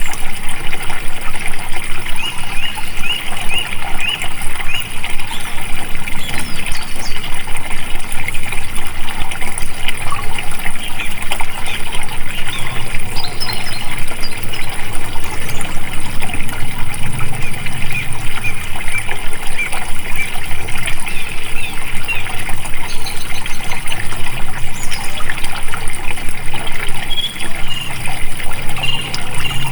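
Flowing water trickling and splashing steadily, with a dense rush of many small quick splashes.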